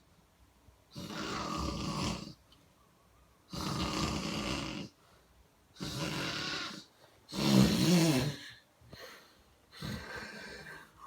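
Snoring in sleep: a series of loud, rasping snoring breaths about every two seconds. The loudest, about seven and a half seconds in, has a buzzing, wavering rattle, and a fainter breath follows near the end.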